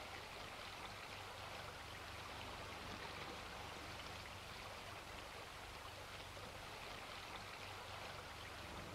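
Steady faint hiss with a low hum underneath: the background noise of an old black-and-white film's soundtrack between music and dialogue.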